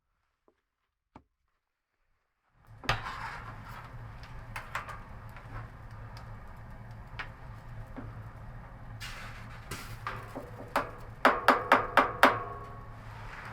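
Scattered sharp knocks and clinks of hard objects being handled over a steady low hum, beginning after a short near silence, with a quick run of about half a dozen louder knocks near the end, each followed by a brief ringing.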